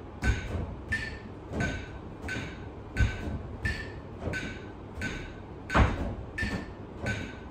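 A mobile-phone metronome app ticking a steady beat, about three clicks every two seconds, with the thud of feet stepping up onto and down from a chair in time with it, pacing a three-minute step test. The heaviest footfall comes about six seconds in.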